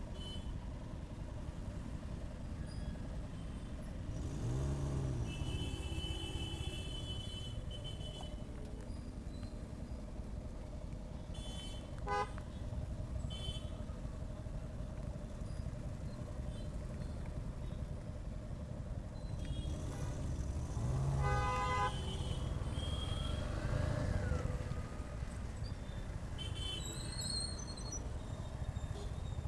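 Street traffic heard from a moving motorcycle: a steady rumble of engine and road noise, with vehicle horns honking briefly about 12 seconds in and again about 21 seconds in.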